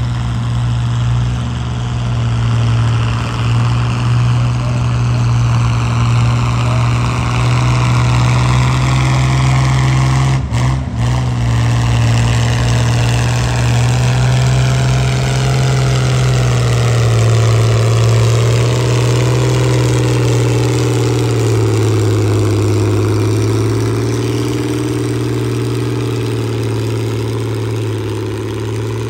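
Antique tractor engine running hard under full load while pulling a weighted sled. Its pitch sinks slowly as the sled drags it down, and it eases off right at the end.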